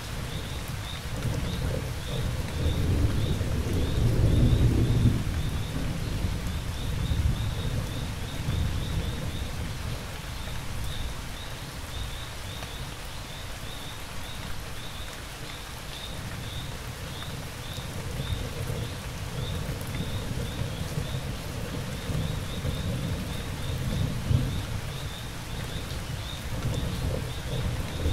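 Steady rainfall with thunder rumbling low, loudest about four seconds in and swelling again near the end, while crickets chirp in a steady high pulse.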